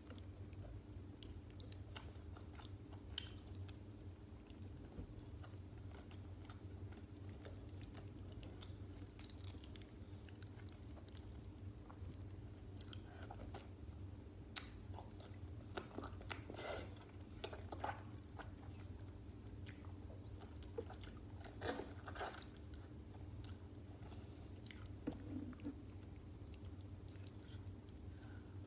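Close-miked chewing and biting of stuffed cabbage rolls, with irregular, wet mouth clicks and smacks scattered throughout. A steady low hum runs underneath.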